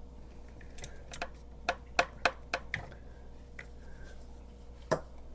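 Sharp clicks and light knocks of parts and tools being handled, about six in quick irregular succession between one and three seconds in and one more near the end, over a faint steady hum.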